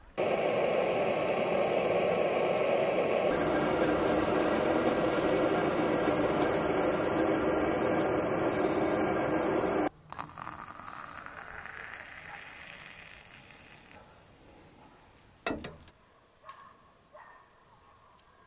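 A steady rushing noise for about ten seconds that cuts off suddenly. Then water poured from a pot into an AeroPress coffee maker, rising in pitch as the chamber fills, followed by a sharp knock and a few light clicks.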